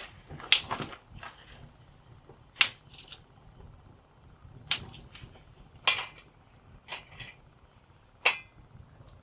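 Dry eucalyptus sticks snapped by hand into kindling for a small wood-burning stove: about six sharp cracks, a second or two apart, some with a smaller second snap just after.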